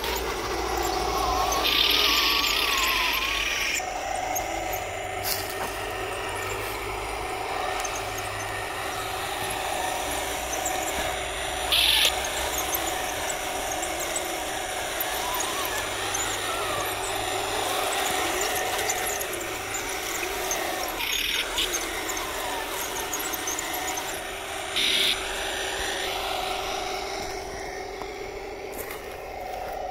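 1/16 scale Torro RC Sturmtiger model tank driving, with a steady whine. A few short hissing bursts break in, the longest about a second and a half near the start, the others briefer, about twice more around the middle and once near the end.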